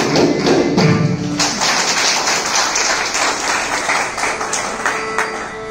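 Mridangam and kanjira playing the final strokes of a Carnatic piece for about the first second and a half, then audience applause.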